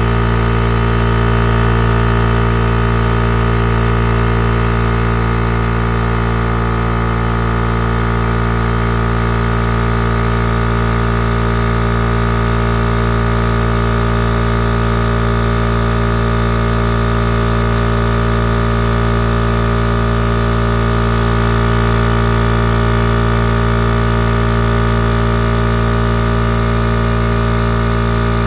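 Husky oil-free electric air compressor running steadily, its motor and pump giving a loud, even hum.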